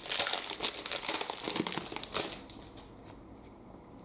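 A Magic: The Gathering booster pack's foil wrapper crinkling as it is handled. The crackle dies down about two seconds in.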